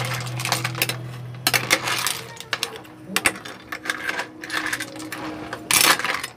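Metal ladle stirring an aluminium pot of snails and vegetables in coconut milk: irregular clinks and scrapes of the ladle against the pot and the snail shells knocking together.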